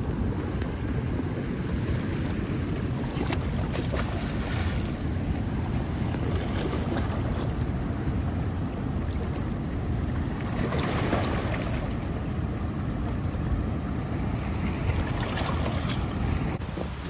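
Steady rushing, rumbling noise of wind buffeting the microphone, heaviest in the low end.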